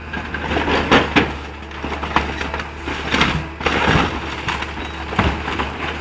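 Orange-peel grapple of a scrap-handling machine crushing and tearing into a hatchback's body, a run of irregular crunching and cracking hits, with the machine's engine running steadily underneath.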